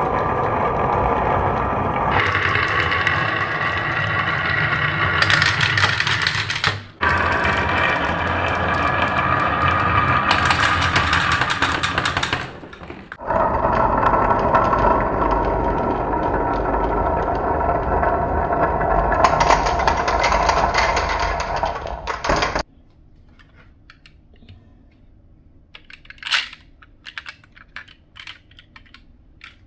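Marbles rolling through a wooden and plastic marble run, a loud continuous rumbling roll that changes character abruptly several times. About two-thirds of the way through it stops, leaving scattered light clicks and taps of marbles on wooden blocks.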